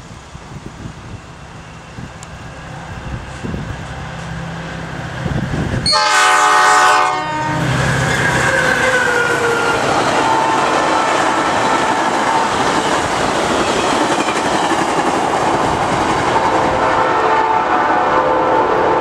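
A Metra commuter train approaches at speed, its diesel locomotive's engine growing louder. About six seconds in comes one loud horn blast lasting about a second. The locomotive and bilevel coaches then rush past with a steady, loud roar of wheels on rail.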